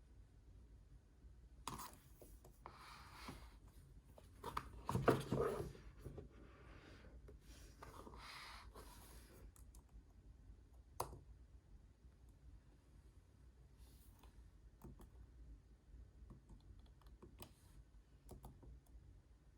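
Unboxing handling sounds of a Magic Keyboard: several seconds of rustling and sliding, a sharp click about eleven seconds in, then scattered light taps and clicks.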